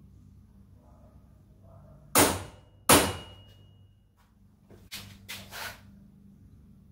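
A center punch striking the metal roof-support strut of an EZ-GO golf cart twice, less than a second apart, each strike sharp with a brief metallic ring, marking the mirror-mount holes before drilling. A few lighter clicks and knocks follow near the end.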